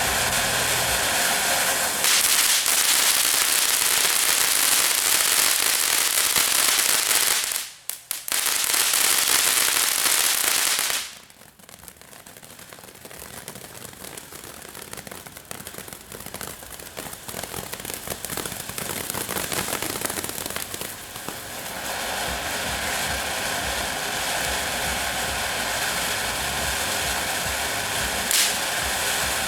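Consumer ground fountain fireworks spraying with a loud, continuous hiss. The sound cuts out briefly about eight seconds in and drops to a quieter crackle at about eleven seconds. From about twenty-two seconds it builds back to a steady hiss, with a single sharp pop near the end.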